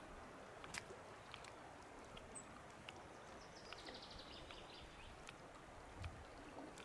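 Faint, steady rush of a shallow, fast-flowing river. It is dotted with a few soft clicks, a brief high chirp a little over two seconds in, and a short rapid high ticking around the middle.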